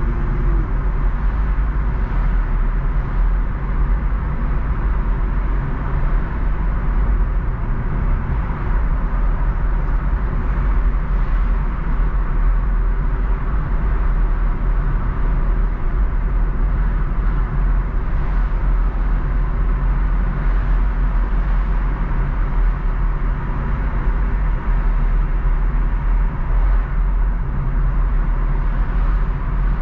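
Car being driven at a steady pace: constant road and engine noise, mostly a deep, steady rumble.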